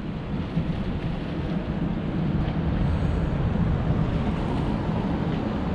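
Wind blowing across the camera microphone, a steady low rumbling rush.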